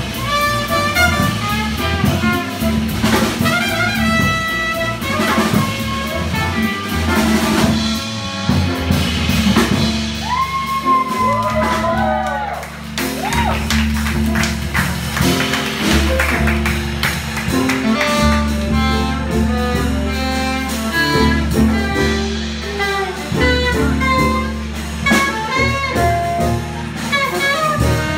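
Live small jazz band playing a fast modal swing tune: trumpet and alto saxophone over upright bass and drum kit. About halfway through, the trumpet drops out and the alto saxophone carries on over walking bass and drums.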